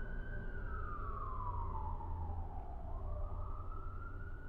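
Emergency vehicle siren wailing over a low rumble: its pitch glides slowly down for about three seconds, then rises again.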